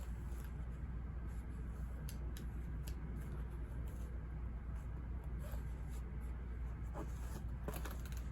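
Pen scratching and tapping on paper in short, scattered strokes over a steady low background hum.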